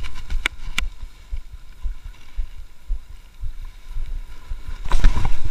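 Wind buffeting an action camera's microphone, a low gusty rumble. Two sharp, ringing clicks come about half a second in, a third of a second apart, and there is a louder rush of noise near the end.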